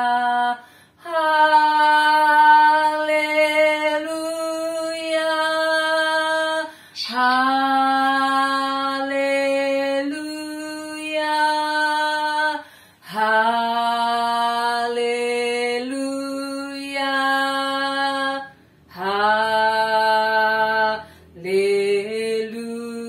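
A woman singing solo and unaccompanied in long held notes. She sings in phrases several seconds long, with short breaks for breath between them.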